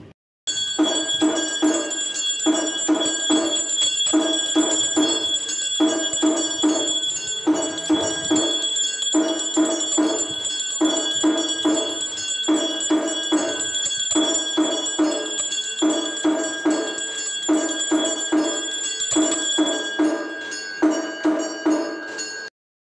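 Devotional music of ringing bells over a steady, repeating drum-like beat, with high bell tones held throughout. It starts abruptly and cuts off suddenly near the end.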